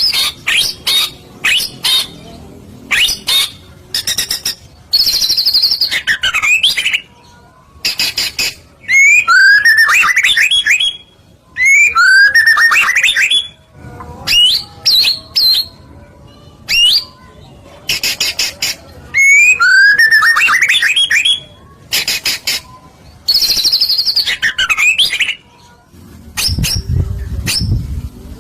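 Recorded songbird song played as a lure track: loud, varied phrases of rising chirps, sharp clicks and buzzy notes, with the same phrases coming back again and again. Near the end a low rumble sits under the song.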